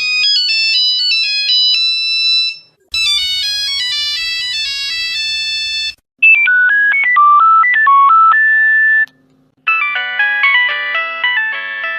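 Phone ringtones played one after another: four different short electronic melodies of bright chiming notes, each cut off after about three seconds with a brief silence before the next.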